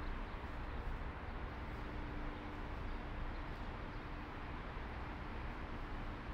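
Steady background hiss and low rumble with a faint constant hum, the ambience of an empty concrete parking garage.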